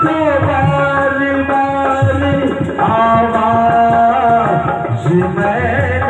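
Male singer singing an old Hindi film song live through a PA, holding long notes, over a band with naal hand-drum rhythm and keyboard and banjo melody.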